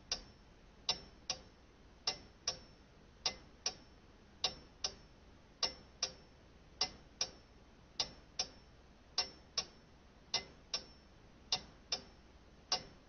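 A clock ticking in an uneven tick-tock rhythm: two sharp ticks close together, then a longer gap, repeating steadily. The ticks are fairly quiet.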